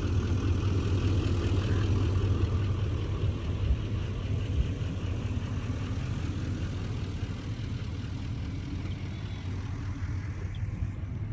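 Heavy harvest machinery engine running steadily, a low hum that slowly fades.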